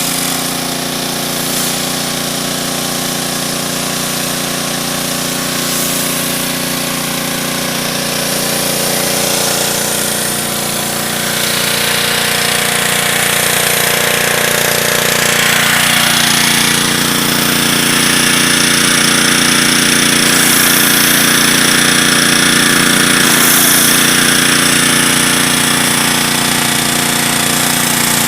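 Pressure washer running steadily while cleaning with a surface cleaner attachment: a constant machine drone under the hiss of the water spray. The spray hiss grows stronger about halfway through.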